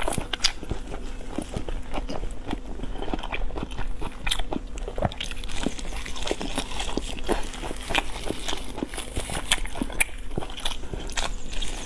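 A person biting and chewing braised meat close on a lapel microphone: a dense run of wet smacks and sharp mouth clicks.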